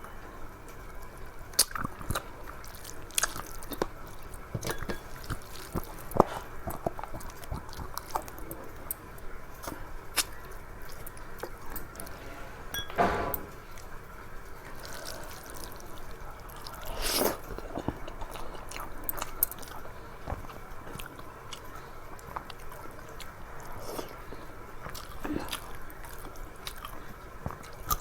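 Close-up eating sounds of a person chewing a meal of rice and curry, with scattered small clicks and wet mouth noises, and a couple of louder ones about halfway through.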